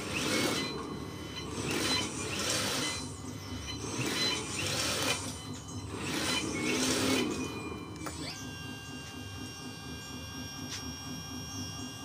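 Radio-controlled model Volvo articulated dump truck tipping its bed: sand pours off in four surges over a faint small electric motor whine. From about eight seconds a steadier motor whine takes over as the truck drives.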